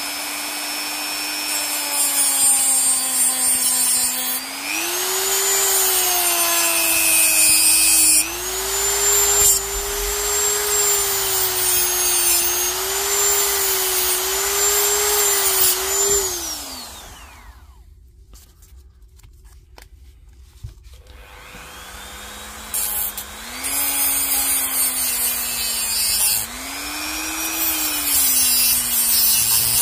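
Dremel rotary tool running at high speed and cutting, its whine wavering in pitch under load with a grinding hiss, used to cut the old cells out of a Milwaukee M18 battery pack. About 17 seconds in it spins down and stops. A few seconds later it starts up again and cuts on.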